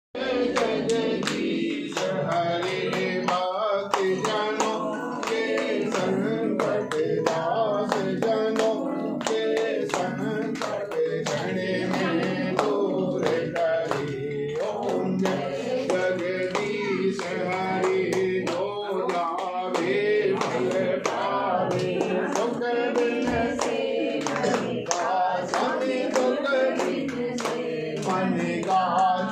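Voices singing a Hindu devotional aarti hymn together, kept in time by steady rhythmic hand clapping.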